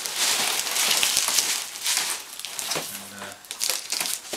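Paper and cardboard packing rustling and crinkling in a steady, irregular stream as a cardboard box is unpacked by hand.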